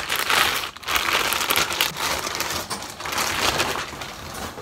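Clear plastic wrapping crinkling in repeated rustles as a tripod is handled and pulled out of it.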